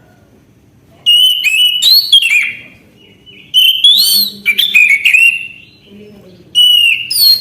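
Orange-headed thrush singing loud, varied whistled phrases that glide up and down in pitch, in three bursts with short pauses between them, the first about a second in.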